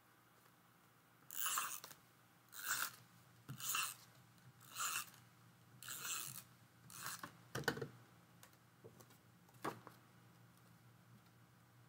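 Adhesive tape runner drawn across card stock in six short rasping strokes about a second apart. Two light knocks follow.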